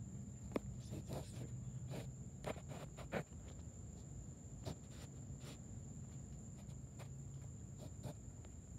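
Night ambience: a steady high insect trill over a low hum, with scattered sharp clicks and pops, the loudest about half a second in and just after three seconds in.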